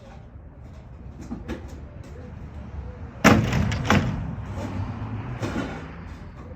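Demolition debris thrown into a steel dumpster: a loud crash about three seconds in, a second hit just after, and a rattling clatter as it settles, with a smaller crash near the end.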